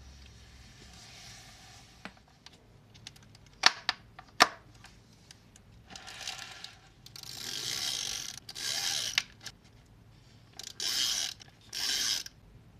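A few sharp clicks as a metal binder clip is opened and clamped onto a notebook page, followed by several bursts of paper rubbing and rustling as hands handle the journal's pages.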